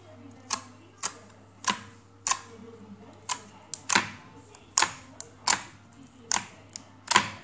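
Fingers poking into thick neon slime in plastic tray compartments, making a dozen or so sharp sticky pops and clicks at an uneven pace, roughly two a second.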